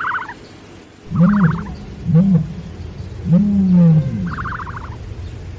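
Animal calls: a string of short low calls that rise and fall in pitch, one of them longer about three seconds in, with brief, rapidly pulsing higher calls between them.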